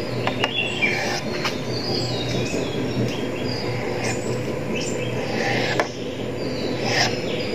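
Small birds chirping and twittering throughout, many short quick calls, over a low steady hum, with a few sharp taps.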